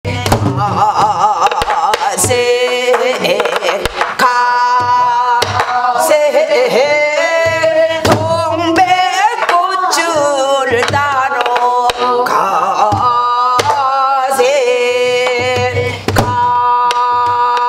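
Korean traditional (gugak) music: a melody of long, wavering held notes over regular drum strokes.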